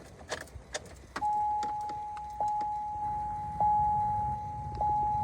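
GMC Envoy's dashboard warning chime: a single steady tone that starts about a second in and is struck again every second or so, four times, each dying away a little, after a few light clicks.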